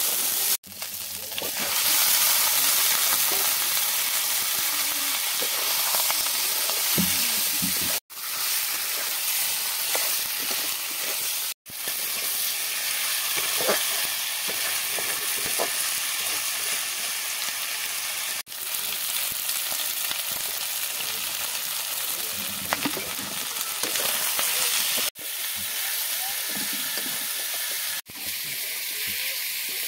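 Chicken pieces and masala sizzling in hot oil in a blackened iron kadai, with a spatula stirring and scraping them around the pan. The sizzle breaks off for an instant a few times.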